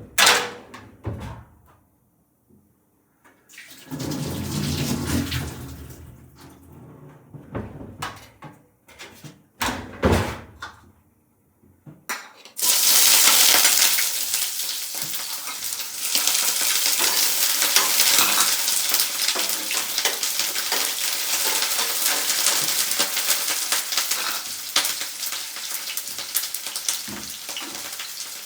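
Kitchen utensils and dishes clattering in separate knocks, then, about twelve seconds in, a sudden loud sizzle as food goes into hot oil in a pan, settling into steady frying.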